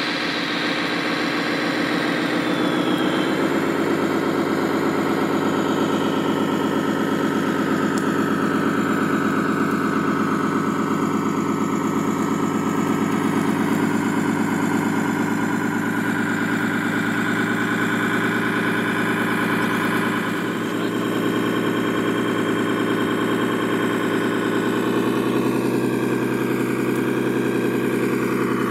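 Simulated diesel truck engine from an RC semi truck's electronic sound unit, running steadily as the truck crawls along under a load of logs, its pitch shifting a little a few seconds in and again near the end.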